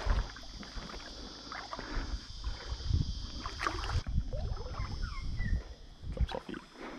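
Water sloshing and splashing around legs wading in a shallow river, with a steady high-pitched hiss that cuts off suddenly about four seconds in.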